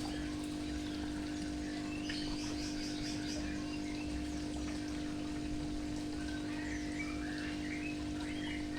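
Several birds chirping and twittering in short, scattered calls, over a steady low hum.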